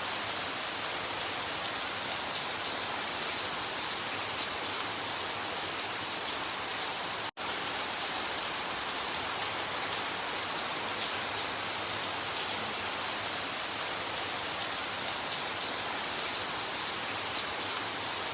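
Steady, moderate rain falling and pattering on surfaces. The sound cuts out for a split second about seven seconds in.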